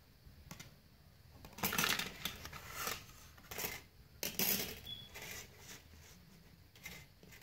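Thin plastic sheets and a plastic frame from a taken-apart tablet screen being handled and shifted on a wooden table: irregular rustling and clattering, loudest about two seconds in and again about four and a half seconds in.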